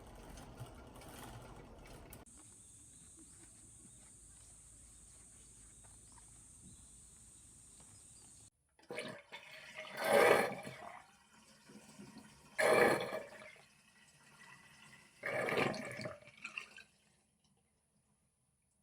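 Rushing water in three loud surges, each about a second long and a couple of seconds apart. Before them comes a faint steady hiss with a thin high whine, which cuts off suddenly.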